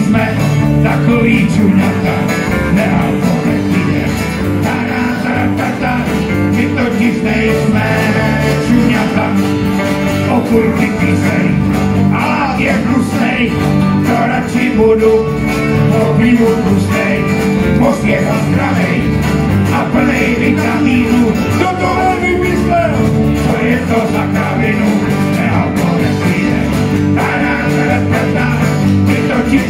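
Live country band with banjo, acoustic guitars, electric guitar, bass and drums playing a steady, upbeat song.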